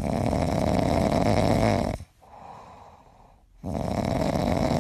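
Sleeping Labrador retriever snoring: two long, rough snores of about two seconds each, with a softer breath between them.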